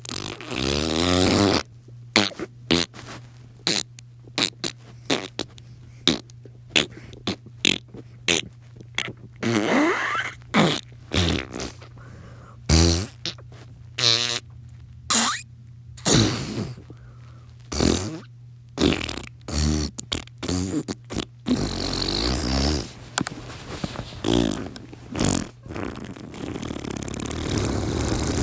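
A long string of fart noises coming about once a second at uneven spacing. Short ones are mixed with longer ones that waver in pitch, and the longest come near the end.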